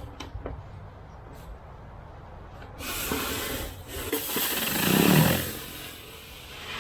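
Whisper Wash surface cleaner spraying pressurized water onto a concrete deck: a hiss starts suddenly about three seconds in, swells to its loudest near five seconds, then eases off.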